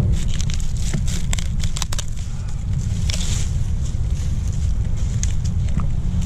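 Pickaroon prying and scraping dry bark and debris off an infested tree trunk, giving many sharp crackles and snaps. A steady low rumble of wind on the microphone runs underneath.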